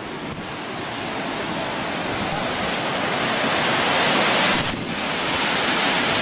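Steady rushing noise of Yosemite Falls, the creek pouring over the brink. It grows louder over the first four seconds and dips briefly about three-quarters of the way through.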